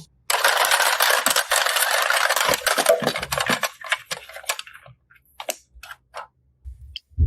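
Slime being squeezed and pressed, giving a dense run of crackling pops for about three seconds, then a few scattered pops.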